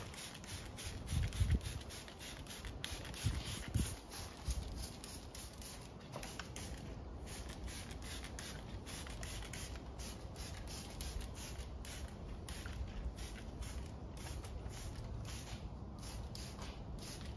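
Hand trigger spray bottle spritzing a dressing over engine bay plastics, quick repeated sprays about two to three a second with short pauses. A few low thumps in the first few seconds.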